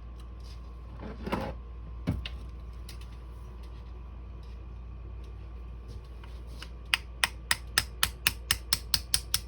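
Light, evenly spaced metal clicks, about four a second, starting about seven seconds in, from hand tools working a screw or pin out of a semi-auto shotgun's receiver during disassembly. A few scattered ticks and one knock come before.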